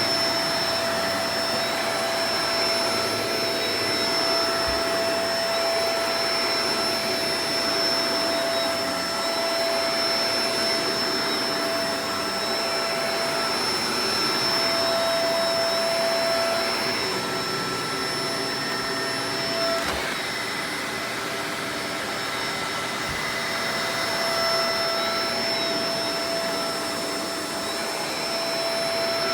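Shark Professional Powered Lift-Away DLX (NV586) upright vacuum running steadily: an even rush of airflow under a high motor whine, with a middle tone that wavers and drops out now and then. A few faint low knocks are heard along the way.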